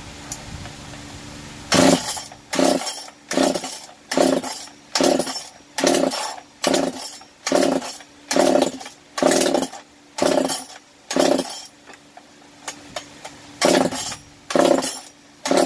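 Makita DPC 7321 concrete saw's two-stroke engine being pull-started: starting about two seconds in, a quick run of about fifteen pulls of the recoil starter, a little more than one a second, each turning the engine over without it catching.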